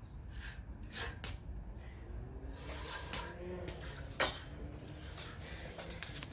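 Hand tools scraping on wet concrete a few short times over a low steady rumble, as a control-joint cut is worked into the fresh slab.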